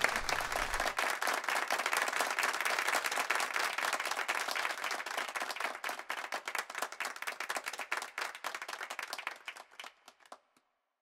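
Audience applauding, a dense patter of many hands clapping that thins out and dies away about ten seconds in.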